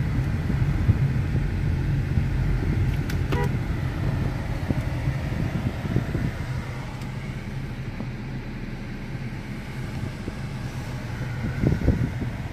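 Road and engine noise inside a moving car's cabin: a steady low rumble that eases a little in the later part and picks up again near the end.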